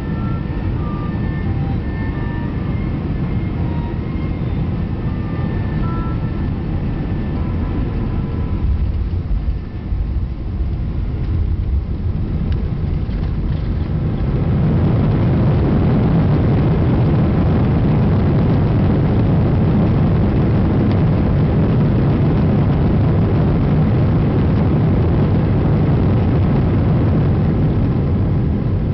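Airbus A320 cabin noise beside the wing on landing: engines and airflow, with a brief jolt about ten seconds in as the aircraft touches down. Halfway through, a much louder, steady rush comes in as the CFM56 engines spool up in reverse thrust and run on through the rollout.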